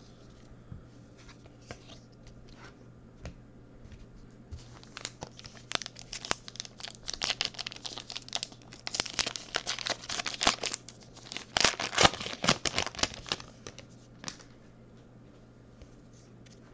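A foil trading-card pack being torn open, its wrapper crinkling in a dense run of sharp crackles that lasts about nine seconds and is loudest near its end.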